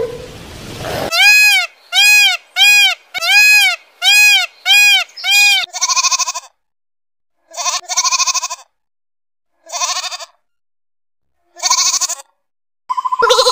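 Lamb bleating four times, each bleat a wavering baa about half a second to a second long, spaced a couple of seconds apart. Before the bleats comes a quick run of seven short calls, each rising then falling in pitch.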